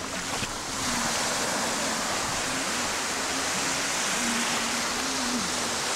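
Small waves washing up onto a sandy beach: a steady hiss of surf.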